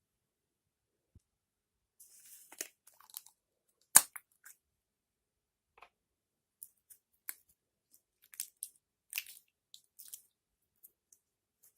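Slime being mixed and squeezed by hand, making irregular small clicks and crackles from about two seconds in, with one much louder sharp pop about four seconds in.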